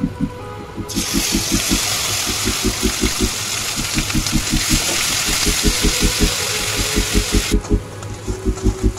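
Hot oil in a wok sizzling loudly as boiled onion and garlic paste goes in. The sizzle starts about a second in and stops abruptly near the end, over background music with a steady beat.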